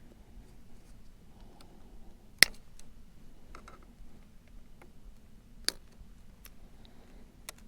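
Scattered sharp clicks and light taps of small parts and hand tools being handled, with two louder clicks about two and a half and five and a half seconds in, over a faint steady hum.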